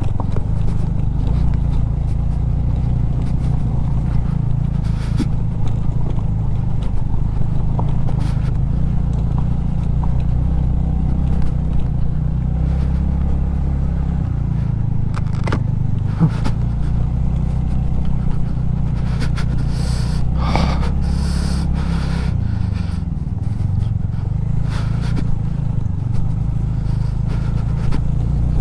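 Two-wheeler's single-cylinder engine running at low speed over a rough, rocky off-road track, its pitch shifting with the throttle a couple of times. Scattered knocks, scrapes and clatter from stones and the suspension.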